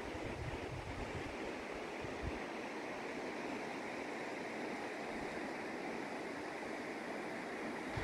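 Steady outdoor rushing noise, with a few low buffets of wind on the microphone in the first two seconds.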